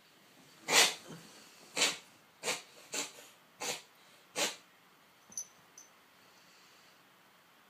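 Cat coughing in a fit of six harsh, wheezy bursts over about four seconds, then stopping. It is a recurring respiratory symptom that returns whenever his daily antibiotic is skipped, and the owner can't tell whether it is a cough or a reverse sneeze.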